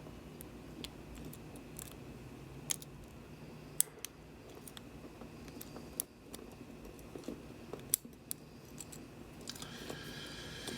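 Lock picks working a pin-tumbler lock: faint, scattered metallic clicks and ticks, about a dozen spread unevenly over several seconds, as the pick and tension wrench move the pins.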